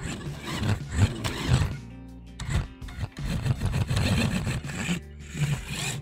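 Background music with steady bass notes, over bursts of scraping, rubbing noise lasting a second or two each.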